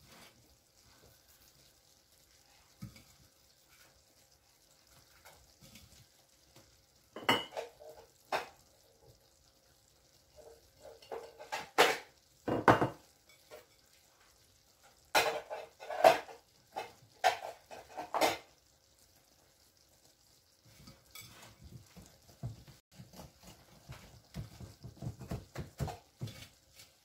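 Wire whisk beating cake batter by hand in a glass bowl while the flour is worked in: scattered clusters of knocks and clinks of the whisk against the bowl, then quicker, softer ticking of steady whisking near the end.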